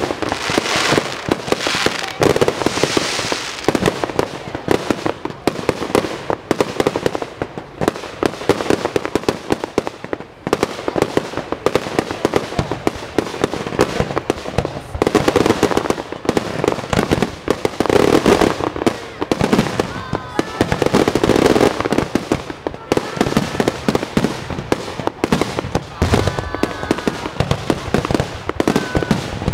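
Fireworks display: a rapid, unbroken barrage of overlapping bangs and crackling bursts.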